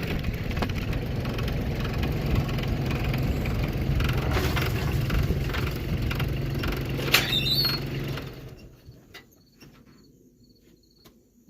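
Skid loader engine running steadily, with a short sharp squeal about seven seconds in; the engine then shuts off around eight seconds, leaving crickets chirping and a few clicks.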